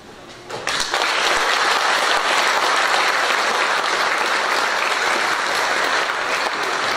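Audience applause that breaks out suddenly about half a second in and carries on steadily.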